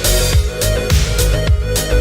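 Electronic background music with a steady beat about twice a second over a deep bass line and held synth notes.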